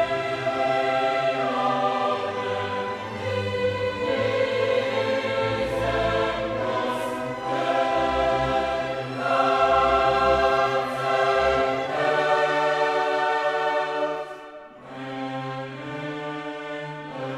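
Background music: choral and orchestral, with sustained chords that change every second or two.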